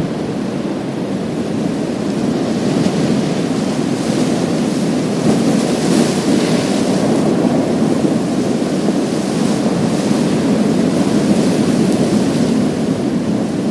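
Sea waves breaking and washing over a pebble beach: a steady surf rush that swells around the middle, where the wash brings a higher hiss and a faint rattle of stones.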